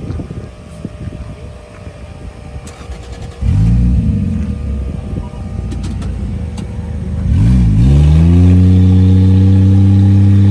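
Off-road 4x4 truck engine revving. A sudden burst of throttle about a third of the way in, then the revs climb and hold high and steady near the end.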